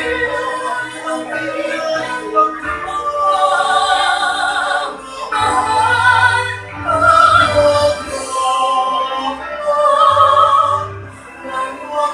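Mixed-voice vocal quartet, men and women, singing a Filipino kundiman in harmony into microphones, in an operatic style with long held notes.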